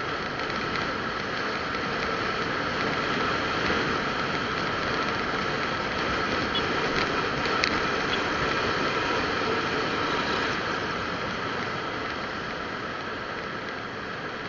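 A vehicle on the move: engine, tyre and wind noise as a steady hiss with a constant whine running through it, and a couple of faint ticks about seven to eight seconds in.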